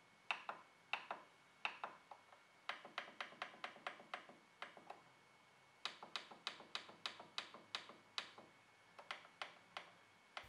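Plastic control-panel buttons on a Canon MF113w laser printer clicking under a fingertip: single presses at first, then quick runs of about four to five clicks a second, as a Wi-Fi password is keyed in one character at a time.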